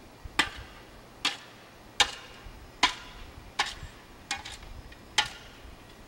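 A shovel, held in an elephant's trunk, striking the dirt seven times at a steady pace of about one strike every 0.8 seconds. Each strike is a sharp chunk with a brief metallic ring.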